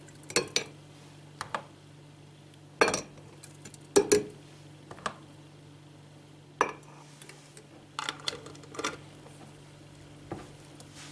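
Spoon and dishes clinking and knocking irregularly as a thick lemon, garlic and honey mixture is transferred into a jar, the loudest knocks about three and four seconds in.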